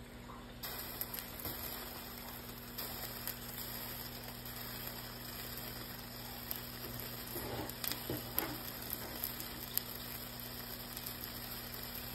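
Pancake frying in grapeseed oil in a covered pan, a steady sizzling hiss with scattered small pops and crackles that grows louder just under a second in. A low steady hum runs underneath.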